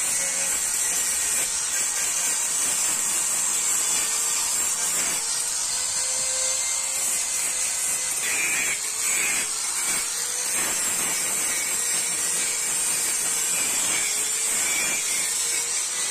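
A power tool runs steadily, making a constant high hiss over a faint motor tone that wavers a little, with a few light taps in between.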